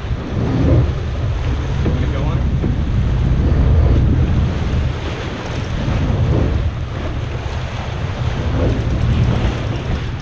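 Wind buffeting the microphone over the rush of waves against the hull of an offshore sportfishing boat.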